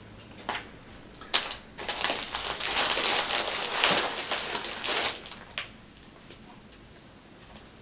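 Packaging crinkling and rustling for about three seconds as items are handled and pulled out of a gift box, after a couple of short clicks.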